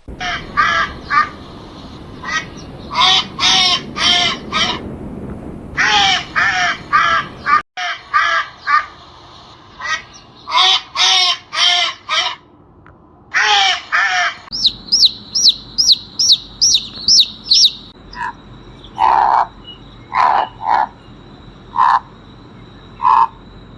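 A sequence of bird calls. Harsh calls come in groups of three or four. Then a fast run of about ten high, rising whistled notes follows, and then spaced single lower calls.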